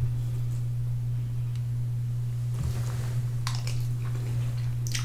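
Faint eating sounds: a plastic fork twirling linguine on a paper plate, then noodles being slurped and chewed near the end. A steady low hum runs underneath throughout.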